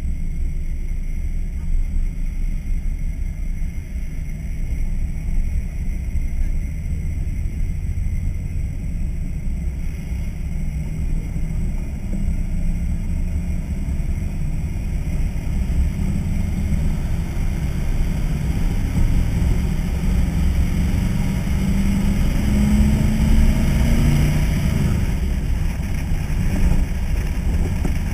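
1964 Chevy C-10 pickup running at a steady cruising speed, heard from a camera mounted on the outside of the truck as a deep steady rumble. The engine note climbs for a couple of seconds about four-fifths of the way in.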